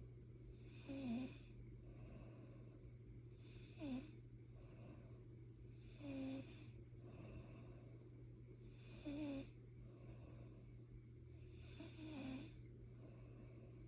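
A sleeper snoring in slow, regular breaths: five short snores, about one every three seconds, with quieter breathing between them and a low steady hum underneath.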